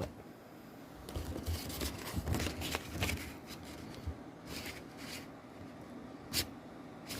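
A paper pamphlet being handled and unfolded, rustling with light scrapes and small taps, and a single sharp click a little past six seconds in.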